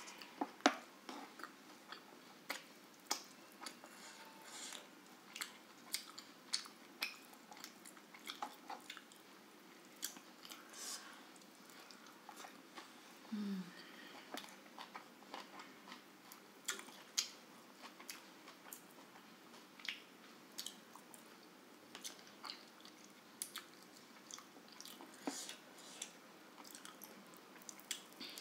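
Close-up chewing and wet mouth sounds of a person eating rice and grilled chicken by hand, with sharp clicks and smacks at irregular intervals. There is a brief low sound falling in pitch about halfway through.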